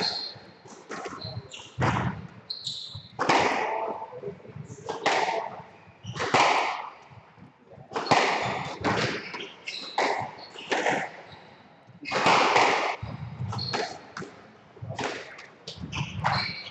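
Squash rally: the ball is struck by rackets and hits the walls, each hit a sharp crack that echoes in the enclosed court, coming irregularly about once a second. Short high squeaks between the hits are shoes on the wooden court floor.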